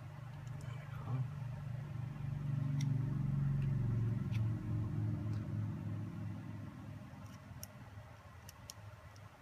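Low engine hum that swells over about three seconds and then slowly fades, as of a vehicle passing. A few faint clicks of small parts being handled are also heard.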